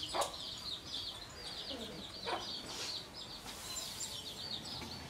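Farmyard chickens: a continuous high, quickly repeated peeping chatter, with a few short lower clucks.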